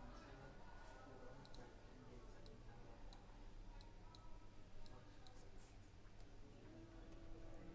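Faint, scattered clicks of a computer mouse, about a dozen short sharp clicks at irregular intervals over a low room hum.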